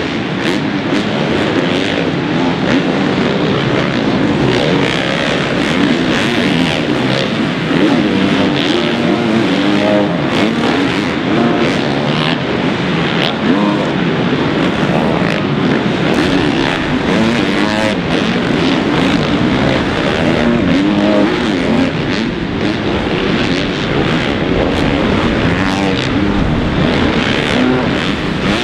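Motocross bikes' engines on a supercross track, continuously revving up and down as the riders work the throttle through jumps and turns, with several engine pitches overlapping.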